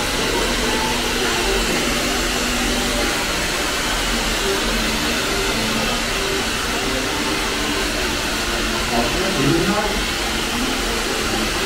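Hand-held hair dryer blowing steadily, with faint voices beneath it.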